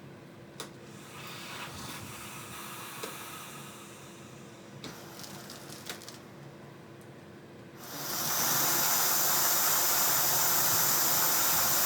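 A few clicks and handling knocks, then about eight seconds in a Centralux central vacuum power unit starts up and runs with a steady, loud rush of air through the hose.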